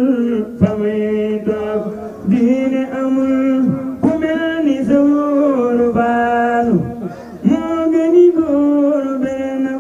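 A man singing a Wolof religious chant into a microphone. He holds long, drawn-out notes that bend and slide between pitches, with short breaks between phrases.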